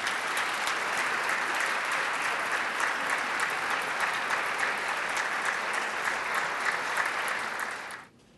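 Audience applauding steadily, stopping near the end.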